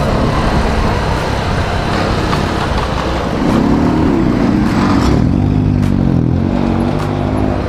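Motorcycle engine running while riding, with wind noise over the microphone. About three seconds in, the engine note rises and then falls back, settling lower.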